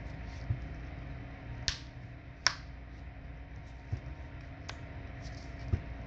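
Crisp snaps of the plastic clips on a Samsung Galaxy A10e's back cover popping loose as a thin pry tool works along its edge: three sharp snaps, the loudest about two and a half seconds in, with a few soft knocks between.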